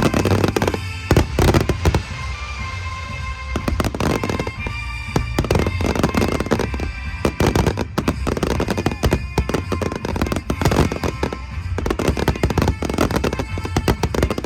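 Fireworks bursting and crackling in rapid succession, the loudest bangs about a second in, with music playing underneath.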